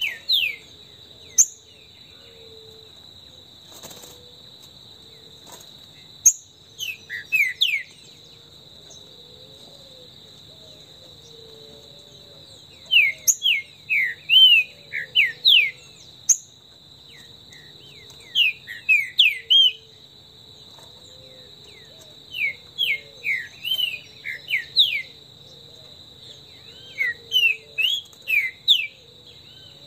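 Green-winged saltator (trinca-ferro) singing: short bursts of quick notes sliding up and down, repeated every few seconds, over a steady high insect drone.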